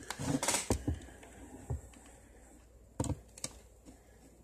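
Handling noises: a cluster of short clicks and rustles in the first second, then a couple of sharper knocks about three seconds in.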